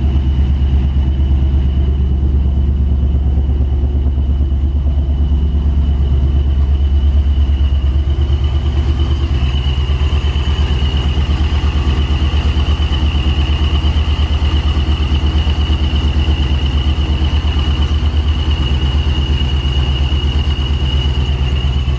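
Boosted GMC Sierra's Vortec V8 idling steadily, just started after sitting a long time with the battery out, with a steady high-pitched whine over the low engine note.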